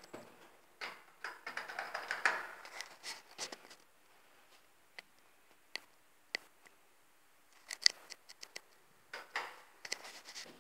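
Scattered sharp clicks and short bursts of rustling in a small elevator car, with single ticks in the quieter stretches and a quick cluster of clicks a little after the middle.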